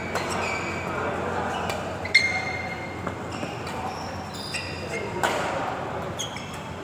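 Badminton rackets striking a shuttlecock during a doubles rally: several sharp hits, the loudest about two seconds in. Between the hits, shoes squeak on the synthetic court mat in short high chirps.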